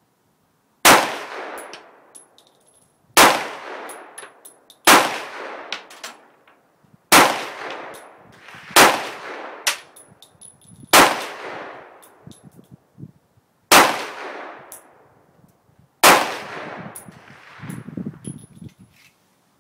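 Tokarev TT pistol in 7.62x25 mm fired eight times at a slow, uneven pace, one to two and a half seconds apart. Each shot is extremely loud, with a long echoing decay, and light metallic clinks come between the shots.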